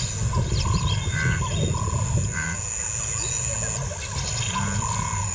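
Bush ambience: short bird calls repeating every second or so over a low rumble and a steady high hiss.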